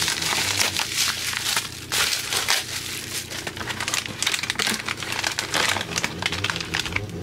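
Clear plastic bubble-wrap and air-cushion packaging crinkling and rustling in irregular crackles as it is handled and peeled off a boxed nitro model engine.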